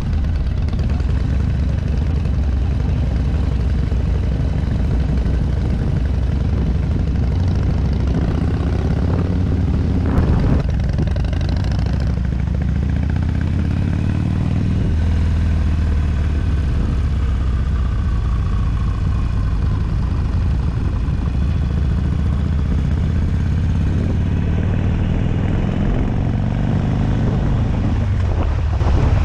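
Harley-Davidson motorcycle's V-twin engine running under way, heard from the bike itself. Its pitch rises and falls several times as the throttle and gears change, with a brief knock about ten seconds in.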